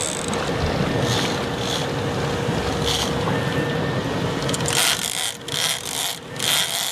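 Steady noise of a sport-fishing boat under way while trolling: engine and churning wake, with a faint steady hum. About five seconds in the noise turns choppy and uneven.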